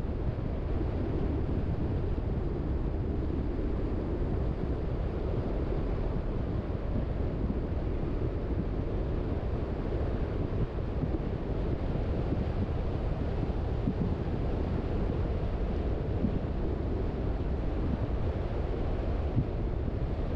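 Steady road noise of a moving car: an even, low rumble of tyres and wind with no breaks.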